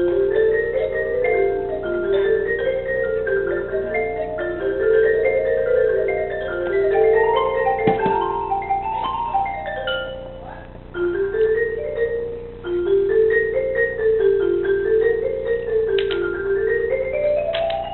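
Marching band mallet percussion playing quick runs of notes that climb and fall in repeated waves, with a few sharp clicks among them.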